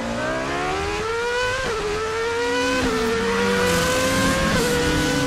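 Car engine accelerating hard through the gears. Its pitch climbs steadily and dips briefly at three upshifts.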